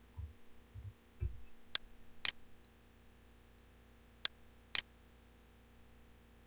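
Computer mouse button clicks: two pairs of sharp clicks, each pair about half a second apart, with a few low thuds in the first second and a half, over a faint steady hum.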